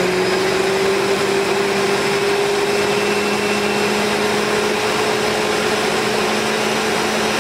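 Ninja countertop blender running steadily, puréeing a thick tomato, onion and chipotle mixture with V8 juice. Its motor note creeps up slightly in the first seconds, then holds.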